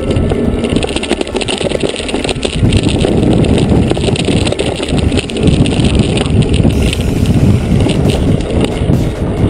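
Mountain bike rolling fast over a dirt trail, heard from a camera mounted on the bike: tyre rumble and wind on the microphone with frequent knocks and rattles over bumps, louder from about two and a half seconds in.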